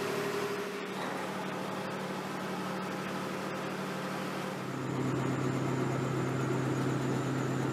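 Marine diesel engine running steadily, a low, even hum. About two-thirds of the way through, the hum steps down to a lower, slightly louder tone.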